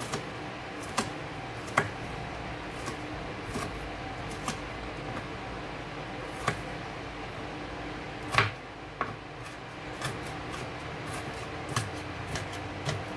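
Small kitchen knife chopping onion by hand on a plastic cutting board: irregular knocks of the blade against the board, the loudest about eight seconds in.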